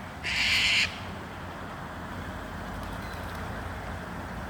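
A duck gives one short, harsh, hissy call lasting about half a second, just after the start, over a steady low background rumble.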